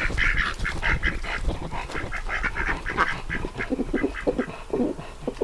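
A small flock of ducks quacking in quick, overlapping chatter, with lower quacks joining in about three and a half seconds in.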